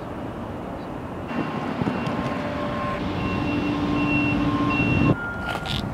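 Repeated electronic beeps, each about half a second long, over a steady low rumble. The sound cuts off suddenly about five seconds in.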